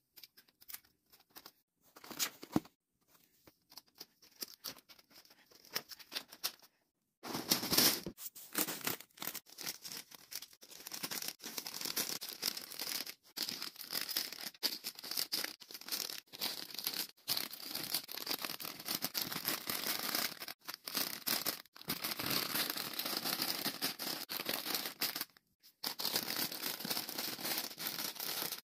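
Plastic chip bags crinkling as they are handled and pushed into the shelves of a wire cart. Sparse rustles and clicks at first, then near-continuous crinkling from about seven seconds in.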